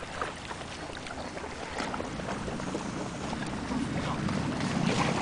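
Wind buffeting the microphone over splashing and lapping water, with scattered short crackles; the low rumble of the wind grows louder in the second half.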